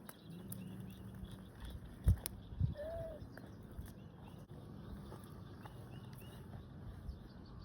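Birds chirping faintly over quiet pondside ambience, with one short lower call about three seconds in. Two or three dull thumps come a little after two seconds in.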